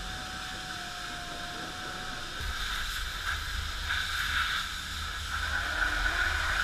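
High-pressure car-wash wand spraying water onto a mud-caked vehicle: a steady hiss that grows louder about two and a half seconds in, over a low rumble.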